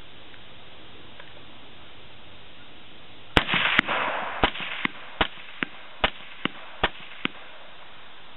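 Five suppressed rifle shots from an AR-type carbine with an AAC M4-2000 suppressor, firing 5.56 mm 55-grain M193 ammunition. They start about three seconds in and come a little under a second apart. Each sharp crack is followed about half a second later by a fainter one.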